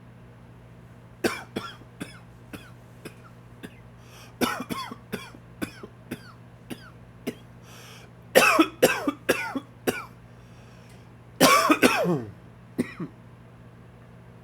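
A man's dry, wheezy cough in repeated fits of short, sharp coughs, set off by allergies. The coughing starts about a second in, and the hardest fits come past the middle and near the end. A steady low hum runs underneath.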